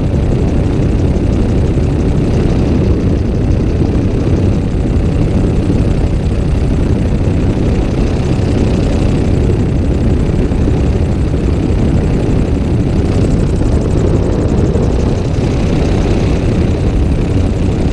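Gyrocopter in cruising flight heard from on board: its engine and pusher propeller running steadily, a loud, even drone mixed with airflow noise.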